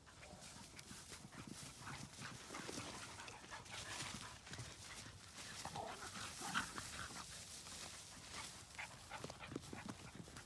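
Footsteps and rustling through long grass, with many small ticks, while a dog moves about; a few short, higher dog sounds come about six seconds in.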